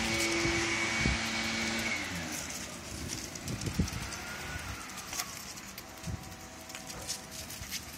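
A motor's steady hum drops in pitch and fades about two seconds in. Scattered light taps and clicks follow.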